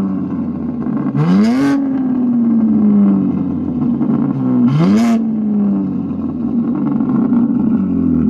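BMW M4 G82's S58 twin-turbo inline-six, fitted with aftermarket downpipes, midpipe and intakes, revved twice while parked. Each rev climbs sharply and falls back slowly to a steady idle.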